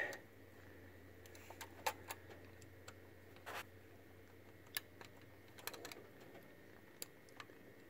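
Faint, scattered small clicks and taps as a small metal choke lever is fitted by hand onto the choke shaft of an Edelbrock four-barrel carburetor.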